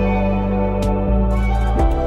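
Soft ambient background music with sustained chords that change about a second in and again near the end.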